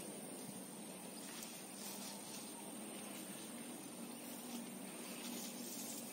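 Faint rustling of leafy squash vines and flowers being handled and pushed into a bag, over a steady quiet outdoor background hiss.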